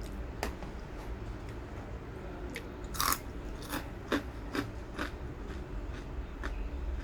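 Crunchy seafood fish-cracker fries being bitten and chewed: a run of sharp crackly crunches, the loudest about three and four seconds in, over a steady low hum.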